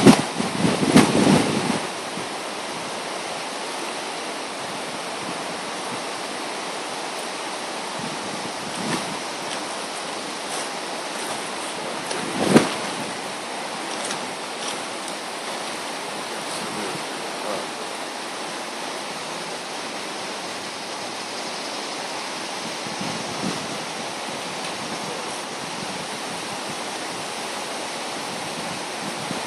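A river in flood, fast and swollen, rushing with a steady even noise of churning water. Wind buffets the microphone for the first couple of seconds, and there is one brief sharp knock about twelve seconds in.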